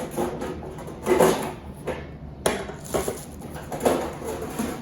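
Handling noise from the parts of a new electric deep fryer: a handful of short knocks and clatters, with rustling as protective paper is pulled off them.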